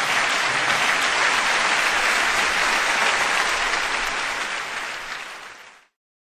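Audience applause at the end of a live song, fading away and stopping just before the end.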